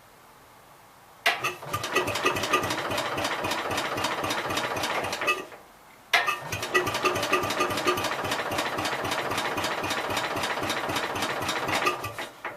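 1966 Gravely C10 engine cranked over twice with its starter, a few seconds each time, turning over rhythmically without catching: it has no spark.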